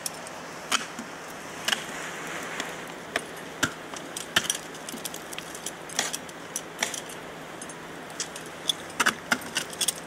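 Crampon front points kicking and scraping into ice as a climber steps up, with carabiners and gear on the harness clinking: a string of sharp, irregular clicks and knocks over a steady hiss, busiest near the end.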